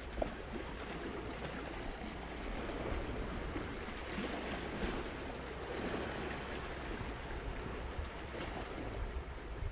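Small sea waves washing and lapping against rocks, a steady wash that swells a little now and then.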